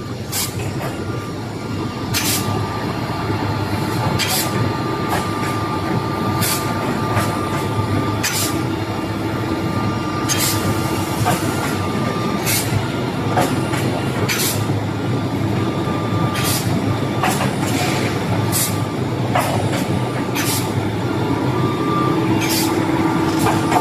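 SH-S200 CNC optimization saw running steadily, with short sharp bursts about every two seconds as it works through its cutting cycle.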